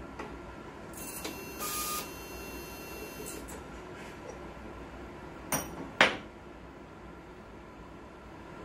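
Label printer and labelling machine at work: a small motor whirs with a thin high whine for about two seconds from about a second in. Then come two sharp mechanical clacks about half a second apart, the second louder.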